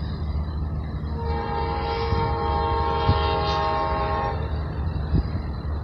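Amtrak locomotive horn sounding one long blast of about three seconds, a chord of several steady tones, from a train approaching the grade crossing. A steady low rumble runs underneath, with a short thump about five seconds in.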